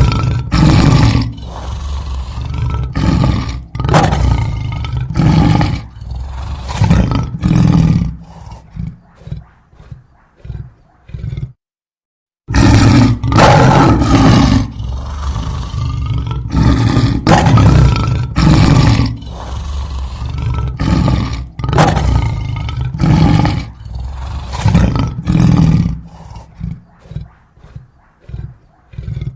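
Lion roaring in two bouts: each opens with long, loud roars and trails off into a string of shorter, fainter grunts. The second bout starts after about a second of silence, some twelve seconds in.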